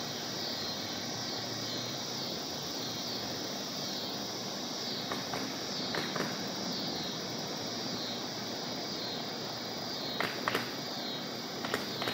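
Steady outdoor ambience: a continuous even hiss with a high, pulsing buzz over it, and a few short sharp clicks near the end.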